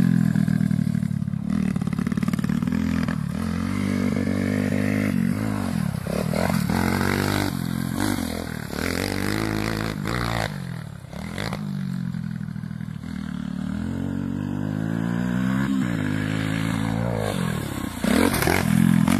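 Four-stroke pit bike engine revving up and down again and again as the rider works the throttle around the track, its pitch climbing and dropping with each pull. It gets louder near the end as the bike comes past close by.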